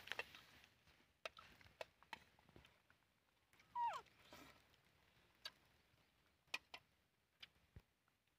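Near-quiet ground with scattered faint clicks. About four seconds in, an animal gives one short squeaking call that falls in pitch.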